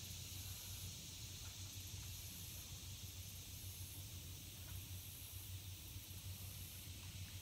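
Faint, steady outdoor background: a high hiss and a low hum, with a few faint ticks.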